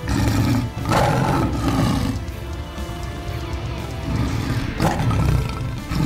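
Lion roar sound effect, heard twice: a long one at the start and another about five seconds in, over background music.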